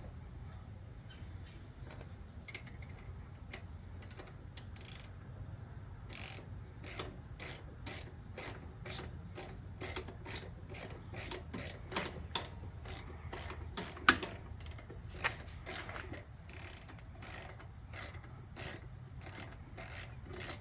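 Hand socket ratchet clicking as a bolt is wound in: a few scattered clicks, then a steady run of about two to three clicks a second from about six seconds in, with one louder click in the middle.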